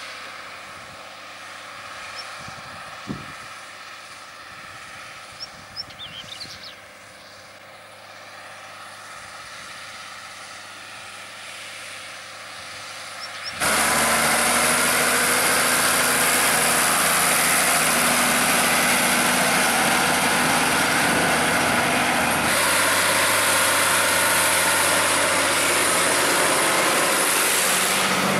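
John Deere 3650 tractor's diesel engine working hard under heavy load, pulling a cultivator through clay soil. The sound is fairly quiet for the first half, then comes in suddenly loud and steady about halfway through and stays so.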